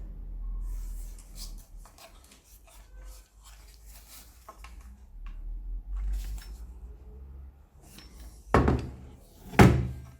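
Small knocks and clicks of objects being handled over a low hum, then two loud thunks about a second apart near the end.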